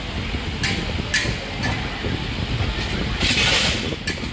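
Steady low rumble of a busy hawker-stall kitchen, with a few light metal clinks and a short hiss a little after three seconds in.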